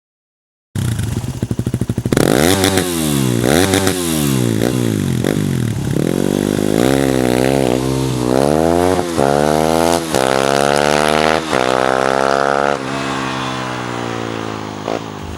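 2008 Yamaha WR250R's single-cylinder four-stroke engine through a Yoshimura RS-4 exhaust, which has a high-pitched note. It cuts in just under a second in and is revved up and down a few times. Then it climbs in pitch repeatedly, dropping sharply each time as if shifting up through the gears, and the note falls away near the end.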